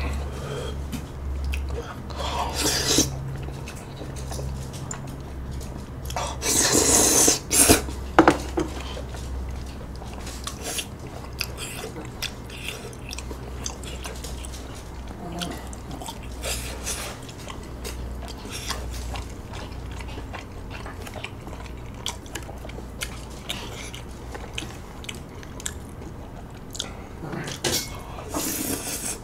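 Close-miked eating of spicy rice cakes and wide Chinese glass noodles in sauce: wet chewing and noisy slurps, the loudest about seven seconds in, with light clicks of chopsticks against the dish.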